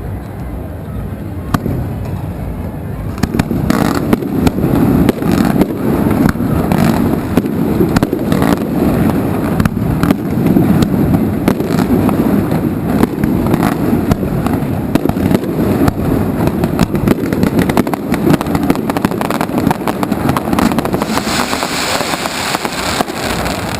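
An aerial fireworks display with rapid bangs and crackling over a continuous rumble. The barrage grows dense about three seconds in and keeps up almost without a break.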